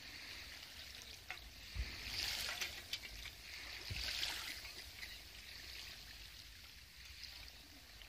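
Small waves washing onto a sandy beach, the surf swelling twice, about two and four seconds in.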